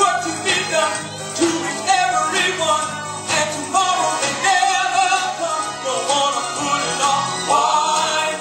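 Gospel song playing, with sung vocals over a band and a steady beat.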